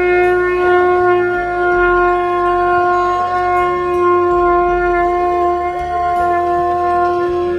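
A horn blown in one long, steady held note, loud and unwavering in pitch.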